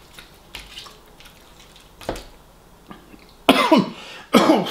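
A few quiet eating clicks, then near the end a man gives two loud coughing groans that fall in pitch, reacting to a mouthful of heavily over-salted food.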